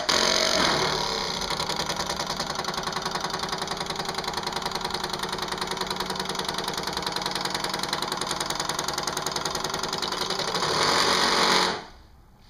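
Honda Gold Wing GL1200 electric fuel pump running on 12-volt battery power, a fast, even buzzing pulse that switches on abruptly and cuts off abruptly near the end. It is louder in the first second and again just before it stops. The pump is working: it moves liquid through the hose to fill the stand-in carbs.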